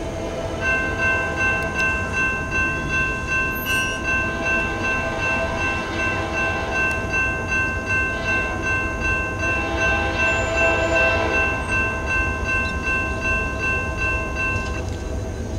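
GE Dash-9 diesel locomotive's multi-chime horn held in one long continuous blast that starts just after the beginning and cuts off near the end, over the low rumble of the approaching train.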